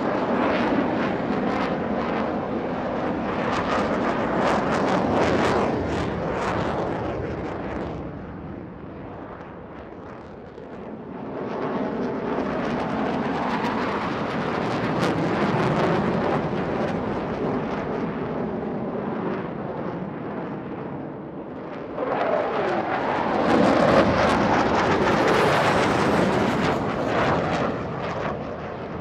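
Airplanes flying low over at an air show: a loud, wide engine noise that swells and fades as each one passes. A louder pass starts suddenly about three-quarters of the way in, with a falling pitch as the plane goes by.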